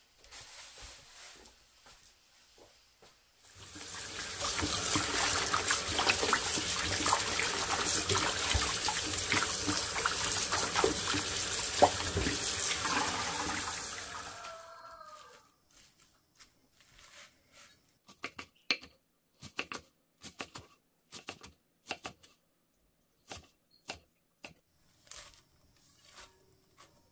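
Tap water running steadily into a basin as chives are rinsed, stopping about fifteen seconds in. Then a knife chopping chives on a wooden cutting board: sharp, irregular knocks about once or twice a second.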